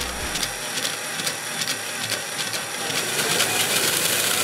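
A Metabo cordless drill-driver spinning the shaft of a home-made shredder's crank-rod mechanism, driving the frame of razor blades up and down, with rapid clicking from the mechanism. It gets louder about three seconds in.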